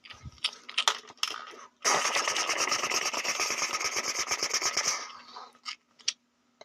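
A person imitating gunfire with the mouth for a toy gun: a few scattered pops, then a rapid machine-gun burst of about ten shots a second lasting about three seconds, tailing off into a couple of last pops.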